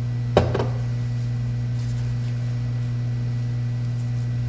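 Steady low hum, with a short sharp clatter about half a second in.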